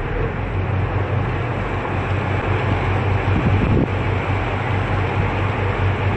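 Steady low engine drone under a constant rushing noise, as heard from aboard a moving vehicle or boat.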